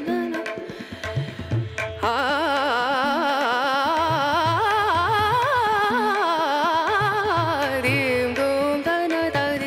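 Background Indian classical-style music: a long, wavering, ornamented melody line over a hand-drum beat, the melody swelling in about two seconds in.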